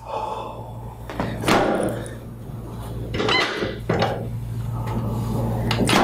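A few sharp knocks and clunks from a chiropractic drop table as pressure goes into the patient's lower back, over a steady low hum.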